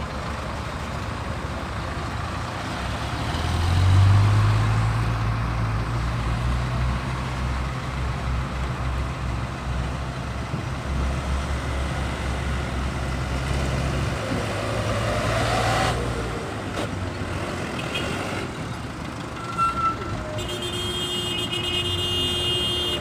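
Diesel dump truck engines running as the trucks pull away and drive over a dirt site. One engine revs up about four seconds in, and a high steady tone joins in near the end.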